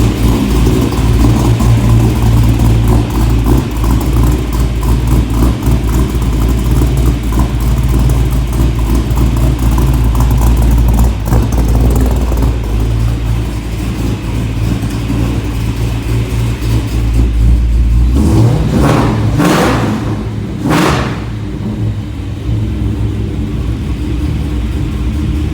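Ford 347 stroker small-block V8, breathing through long-tube headers, a catless X-pipe and a Magnaflow muffler, running hard with a loud, steady exhaust drone heard from inside the car. About 18 seconds in the drone eases off, two quick rev surges follow, and then the engine runs quieter.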